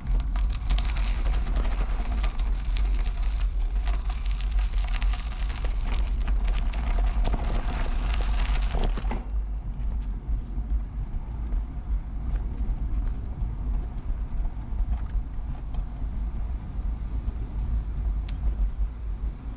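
Riding noise of an early-1970s Peugeot UJ-10 ten-speed bicycle: a steady deep wind rumble on the microphone under tyre hiss and small rattles. The brighter rushing hiss drops away about nine seconds in.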